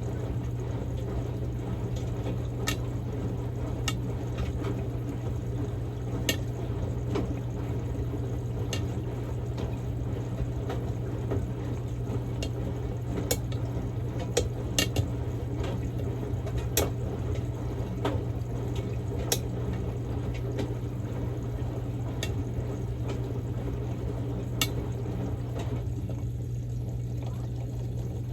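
Samsung Grande washing machine running a quick-wash cycle on a padded jacket: water sloshing in the tumbling drum over a steady low motor hum, with scattered sharp clicks.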